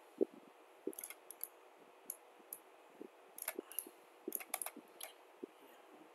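Computer mouse buttons clicking, single clicks and quick clusters of two or three, over faint hiss with soft low thumps.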